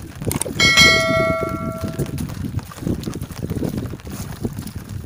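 A metal object struck once about half a second in, ringing with several clear tones that fade over about a second and a half, over a steady rough low rumble.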